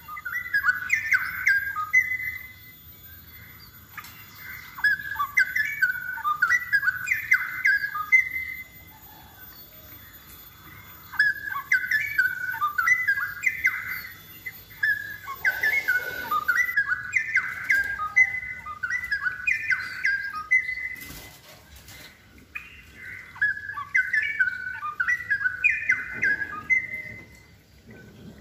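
Straw-headed bulbul (cucak rowo) singing in vigorous, rich warbled phrases, bursts of a few seconds repeated about five times with short pauses between them.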